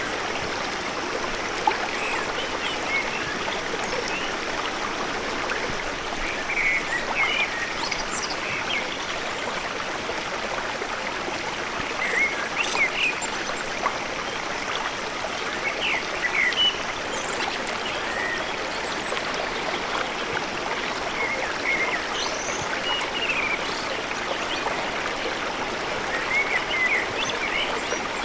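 River water flowing steadily, with short high chirps now and then.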